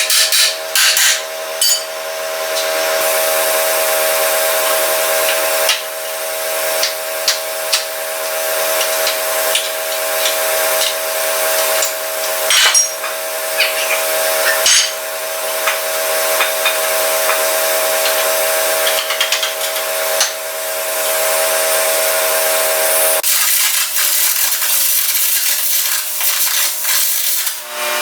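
Carbon arc gouging on steel: a continuous loud hiss and crackle of the arc and air jet, broken by sharp pops, over the steady hum of an engine-driven welder running. The gouging cuts out old weld and cracks in a cracked frame.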